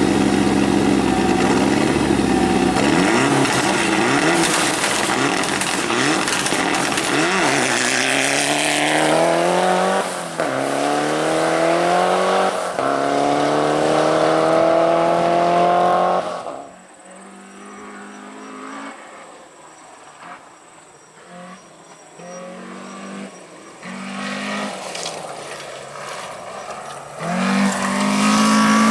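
Rally car engine at full throttle, its pitch climbing through several gear changes. Partway through the sound drops suddenly to a quieter car with short bursts of throttle, and a loud engine note returns near the end.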